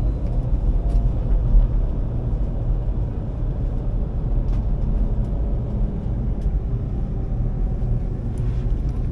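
Taiwan High Speed Rail bullet train running, heard from inside the passenger cabin as a steady low rumble with a few faint ticks.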